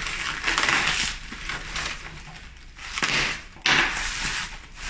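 Protective packaging being pulled open and crumpled by hand: several bursts of rustling and crinkling, with a sudden sharp crackle about three and a half seconds in.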